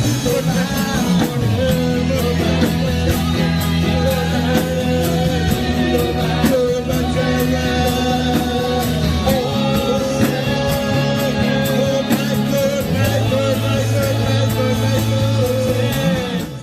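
A live church worship band playing: steady bass notes, drums and a held, wavering melody line. The music cuts off abruptly at the very end.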